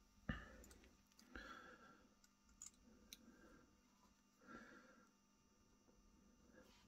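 Near silence with a few faint clicks and soft rustles as small steel pistol parts are handled and fitted by hand.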